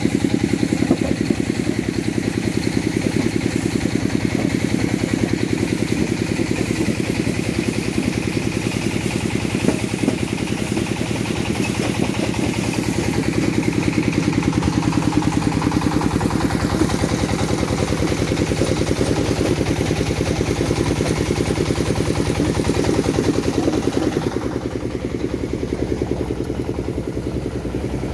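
Dongfeng diesel engine running steadily under load, driving a mini stone crusher and its conveyor belt. Near the end the sound turns duller and a little quieter.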